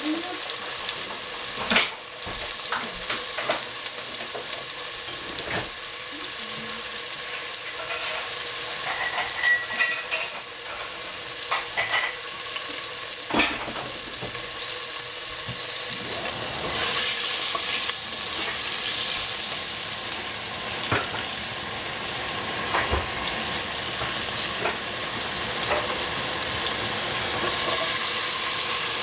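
Hedgehog mushrooms and greens sizzling in a hot pan, a steady frying hiss, with a few sharp clicks of a utensil stirring against the pan.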